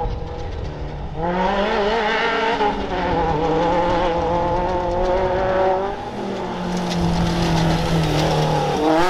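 Class 10 off-road race car engine revving hard: it climbs sharply about a second in and holds at high revs, wavering, drops to a lower steady note near six seconds, then revs up again at the end.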